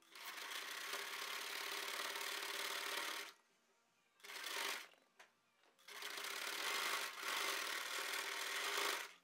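Home electric sewing machine stitching a seam through velvet fabric, running in three goes: about three seconds, a brief burst, then about three seconds more, stopping in between.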